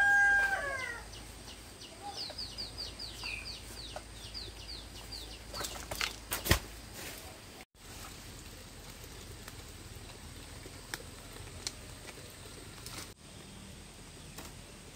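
A rooster's crow ending with a falling tail about a second in, followed by a run of quick, high, falling chirps from a small bird, about three a second. A few knocks follow, the sharpest about six and a half seconds in, then only low steady background.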